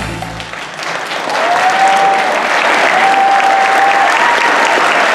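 Audience applause swelling as the music stops, then holding steady, with a few long high calls from the crowd over the clapping.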